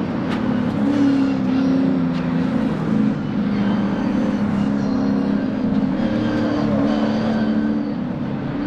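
Several V8 Thundercar race cars at high revs through a corner, engine pitch stepping up and down slightly, with a few short sharp cracks.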